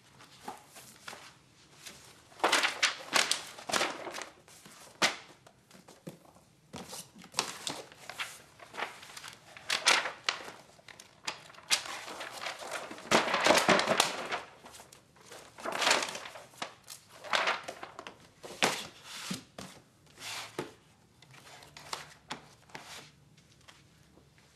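Papers and books being handled at a desk: irregular rustling of pages and paper with thunks as things are picked up and set down, loudest in a long stretch of rustling about halfway through.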